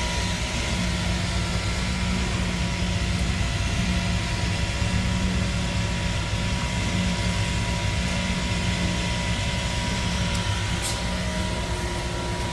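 Mortar pump truck running steadily while pumping floor screed mortar through its hose: a constant engine-and-pump hum with a thin steady whine above it. A brief click about eleven seconds in.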